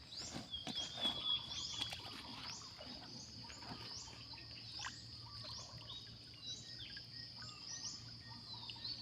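Outdoor wildlife chorus: a steady high-pitched drone with short rising chirps repeating about once a second, and scattered faint light knocks.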